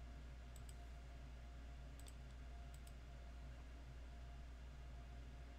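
Computer mouse button clicking three times, each click a quick pair of ticks, faint over a steady low hum.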